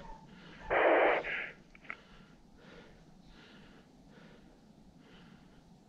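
Faint, rhythmic footsteps through frosty winter wheat, about one and a half steps a second, after a short loud burst of hiss about a second in.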